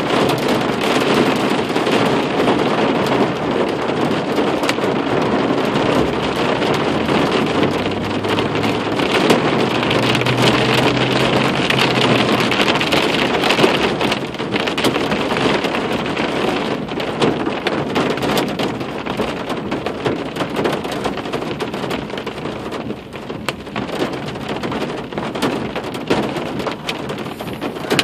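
Heavy rain beating on a car's roof and windshield, heard from inside the car, a dense steady patter full of sharp drop hits; it eases somewhat in the second half.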